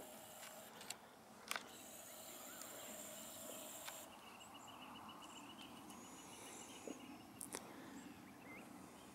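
Quiet outdoor ambience: a faint hiss, a faint trill of evenly spaced chirps, about seven a second, through the middle, and a few light clicks.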